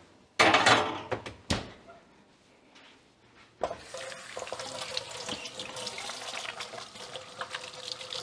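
Metal oven rack sliding in with a scrape, then the oven door knocking shut about a second and a half in. From about three and a half seconds on, water runs steadily from a kitchen tap.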